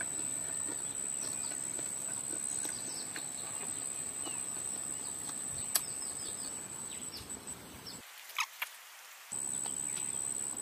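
Rural outdoor ambience: a steady high-pitched insect drone with many short bird chirps over it, and a few sharp clicks. The drone cuts out for about a second just after eight seconds in, then returns.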